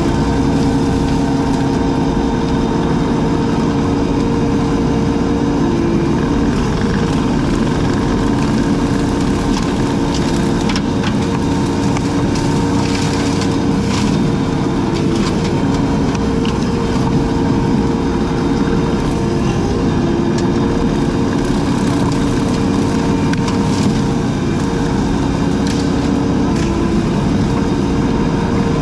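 Engine of a brush-clearing machine running steadily, its pitch sagging briefly now and then as it takes load, with scattered crackling snaps of brush and wood being cut, most of them near the middle.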